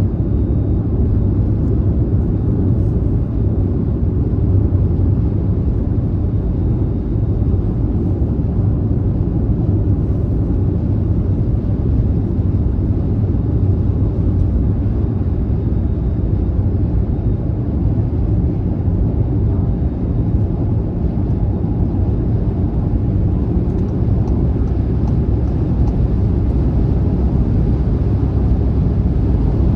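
Car driving at speed on a highway: a steady low rumble of road and tyre noise that stays even throughout.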